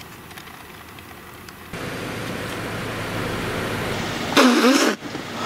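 Steady noise inside the cab of a Toyota Tacoma pickup with its engine running, a hiss with a low hum. It starts suddenly about two seconds in, after a faint stretch with a few clicks. A short vocal sound comes near the end.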